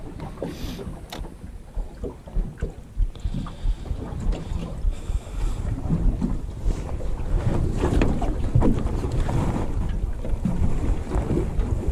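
Wind buffeting the microphone, with small waves slapping against the hull of a small aluminium boat. It gets louder about halfway through.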